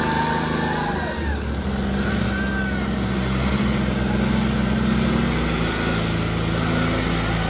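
Tractor diesel engines running steadily, of John Deere 5310 tractors, with the engine note shifting about a second in and again about two-thirds of the way through.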